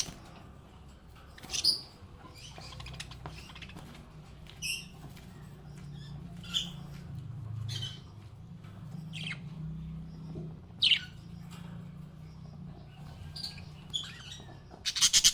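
Small pet parrots chirping: short, separate high chirps every second or two, with a loud rapid run of calls near the end, over a low steady hum.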